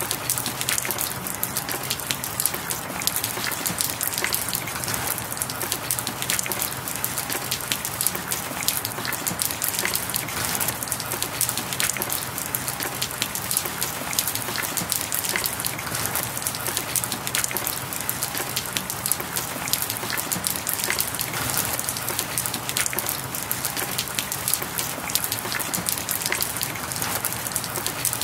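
Steady rain falling, made up of many small drop ticks over a constant hiss, with no change in level.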